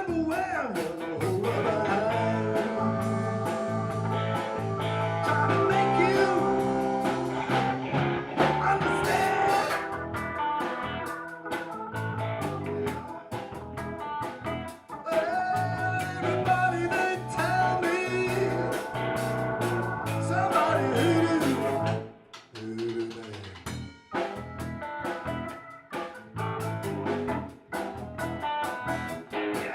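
Blues band playing an instrumental passage: a lead instrument bends notes over bass and drums. The band drops back sharply for a moment about 22 seconds in.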